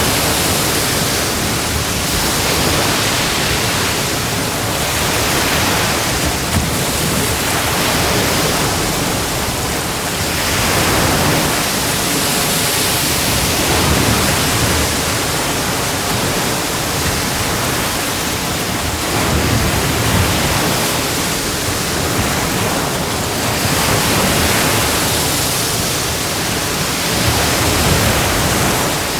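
Ocean waves breaking and washing on a beach: a continuous hiss of surf that swells and eases every few seconds.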